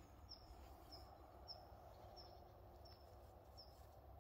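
Faint bird call: a short, high, slightly falling chirp repeated evenly about every two-thirds of a second, seven or so times, over a low wind rumble.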